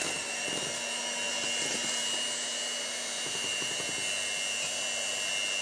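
Electric hand mixer running steadily with a high motor whine, its beaters whisking butter pieces into an egg and sugar-syrup foam to make buttercream.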